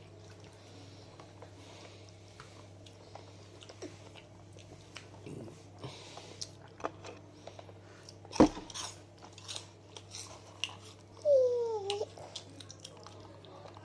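Close-up chewing and crunching of crunchy puffed snacks, with scattered short crunches and one sharp, loud crack about eight seconds in. Near the end there is a brief hummed vocal sound that dips and rises in pitch.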